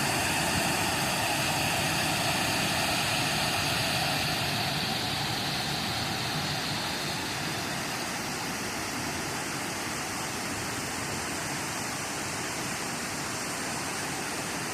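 Waterfall pouring: a steady rush of falling water that eases slightly after about five seconds.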